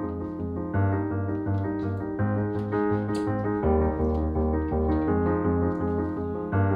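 Piano-led background music: keyboard chords that change about every second and a half over a steady pulsing bass.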